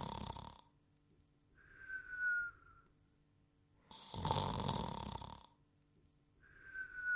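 A cartoon dog character snoring: a rasping snore followed by a short whistle that dips slightly in pitch, the cycle repeating about every four seconds.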